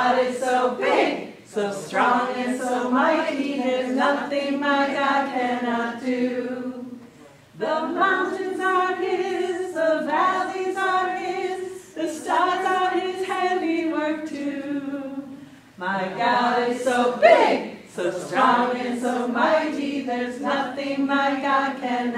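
A small group of women singing a children's song together with no instruments heard, in sung phrases broken by short pauses about seven and fifteen seconds in.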